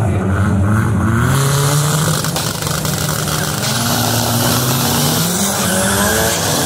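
Two drag-racing cars revving their engines at the start line, then launching with tyres squealing; the engine pitch climbs steadily near the end as they accelerate away.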